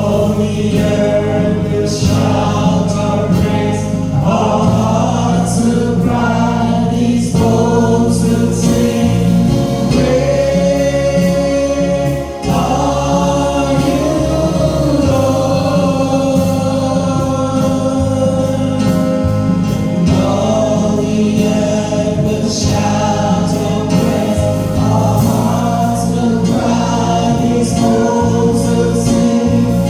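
Gospel choir singing a hymn with instrumental accompaniment.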